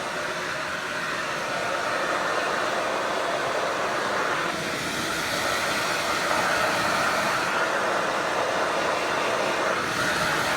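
Hand-held hair dryer blowing steadily, a loud rush of air whose tone shifts briefly about four and a half seconds in and again near the end.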